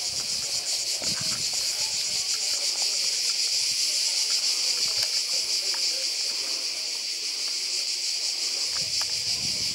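Chorus of cicadas: a loud, high, steady shrill with a fast pulsing texture.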